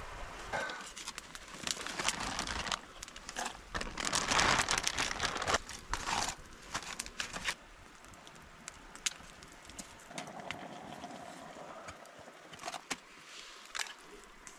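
Irregular knocks and clicks of cooking gear and a machete being handled beside a crackling campfire, busiest in the first half and quieter after about eight seconds.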